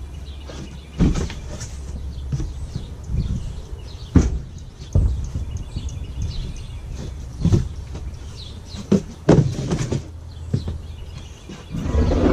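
Cardboard packing boxes and heavy cast lathe parts being handled: irregular knocks, thumps and scraping over a steady low rumble.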